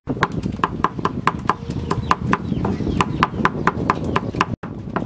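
Steel cleaver chopping rapidly on a thick round wooden chopping block, mincing garlic and shallot: quick, evenly spaced knocks, about five a second.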